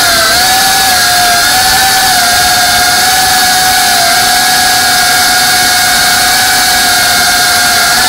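GEPRC FPV quadcopter's brushless motors and propellers whining at a high, nearly steady pitch over a steady hiss, the pitch wavering slightly in the first second.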